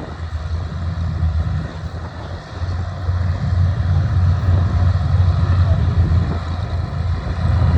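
Deep, steady rumble of Hawker Hurricanes' Rolls-Royce Merlin V12 piston engines running at low power. It dips briefly a couple of seconds in.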